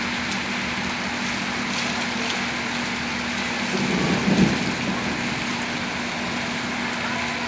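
Heavy rain pouring steadily, with a brief louder low rumble about halfway through.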